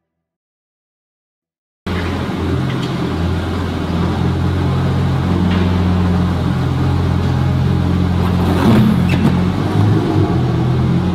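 A vehicle engine running steadily with a low, even hum, cutting in abruptly about two seconds in after silence.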